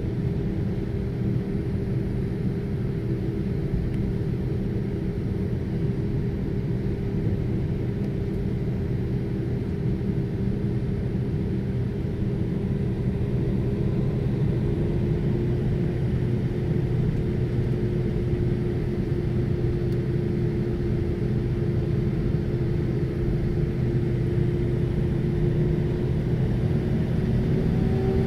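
Airbus A319 taxiing, heard from inside the cabin: its IAE V2500 jet engines at low taxi power make a steady low rumble and hum. One engine tone drifts slowly lower, and a higher tone creeps upward near the end.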